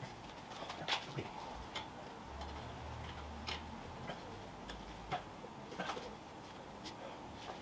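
Irregular light metallic clicks and ticks of a spanner working the brake pipe union nut at a car's rear drum-brake back plate, the sharpest about a second in.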